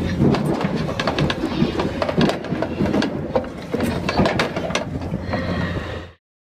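Excavator's diesel engine idling steadily, mixed with dense rustling and knocking as the handheld phone moves. All sound cuts off suddenly about six seconds in.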